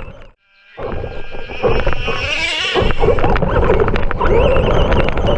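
Corgis barking and yelping excitedly, starting after a brief silence near the start.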